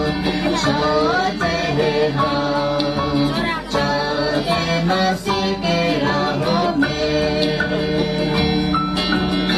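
A group of children singing a Nepali action song together over instrumental accompaniment.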